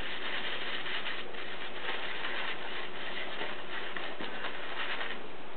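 Shaving brush bristles swirled over a puck of shaving soap in a wooden bowl: a soft, steady scratchy brushing that goes on without a break, over an even hiss.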